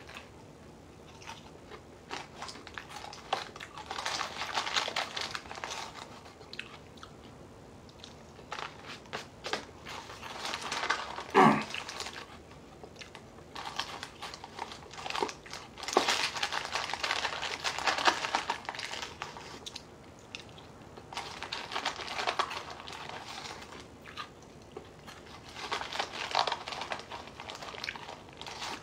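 Dry Lucky Charms cereal and marshmallows crunched and chewed in several bouts, with the cardboard cereal box rustling as fingers pick pieces from it. About halfway through, one short sound glides down in pitch, the loudest moment.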